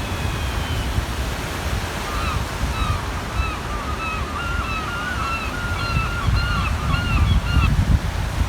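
Waves washing on the shore with wind rumbling on the microphone. Over them a gull calls a run of short, arched notes, about two a second, from about two seconds in until near the end.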